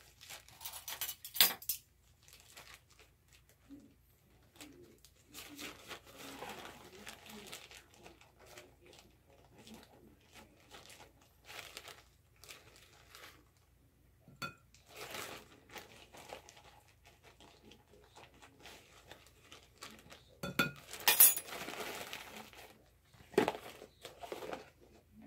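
Plastic bag of brown sugar crinkling as it is handled, with intermittent clinks and knocks of a measuring spoon and containers against a mixing bowl. The loudest cluster of knocks and clinks comes about twenty seconds in.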